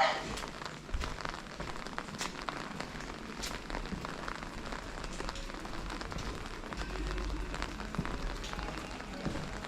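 Rain falling, with scattered drops ticking on hard surfaces. A brief high-pitched cry sounds right at the start, and a low rumble rises about seven seconds in.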